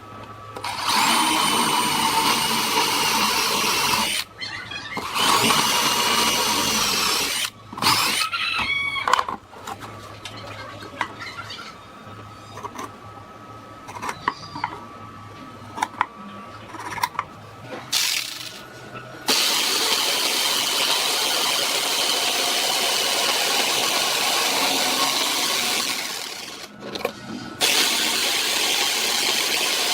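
Angle grinder sanding metal, running with a steady high whine in several short bursts. A quieter stretch of knocks and clatter follows, then two long steady runs.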